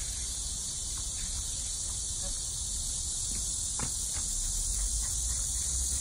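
A steady, high-pitched chorus of insects buzzing and trilling in the background.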